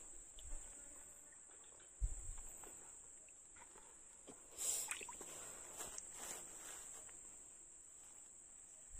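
Steady, high-pitched insect chirring in the background, with a soft thump about two seconds in and a brief rustle a little before the five-second mark.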